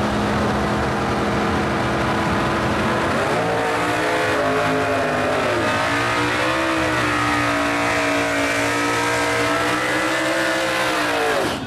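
Drag racing car's engine held at high revs through a burnout, with tires spinning on the pavement. It runs steady for about three seconds, then the pitch climbs and wavers up and down before cutting off abruptly near the end.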